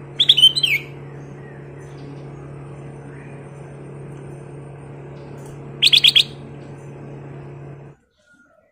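Black-crested bulbul singing two short bursts of quick, clear whistled notes about five seconds apart, over a steady low hum that cuts off near the end.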